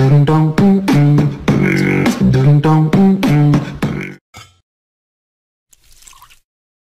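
Short comic tune of quick pitched notes stepping up and down, possibly voiced, which cuts off about four seconds in; a faint brief sound follows near the end.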